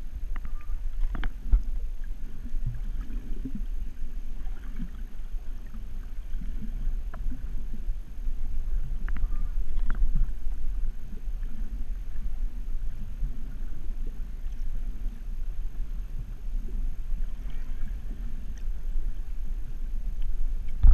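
Muffled underwater noise from a submerged camera: a steady low rumble of moving water with faint scattered clicks.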